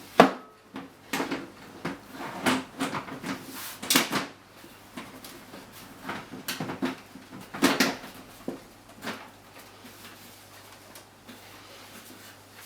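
A series of knocks, clacks and scrapes of computer hardware being handled, spread over the first eight seconds or so, then only a faint steady hum.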